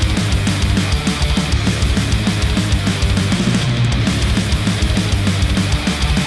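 Heavy rock music with fast, dense drum hits and a steady, full band sound, played back through headphones and picked up by microphones at the earcups.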